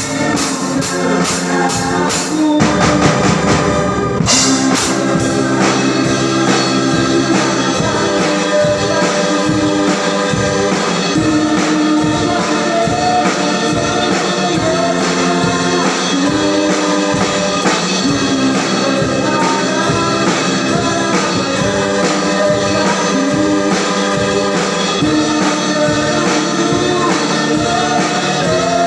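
Praise-and-worship song: singing over a band with drums and keyboard, keeping a steady beat. A cymbal swell builds a few seconds in, leading into the next section.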